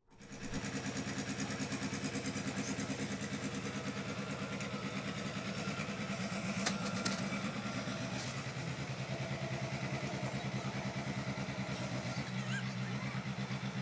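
JCB crawler excavator's diesel engine running steadily under working load, its note shifting a little as the arm and bucket work, with a couple of brief clicks partway through.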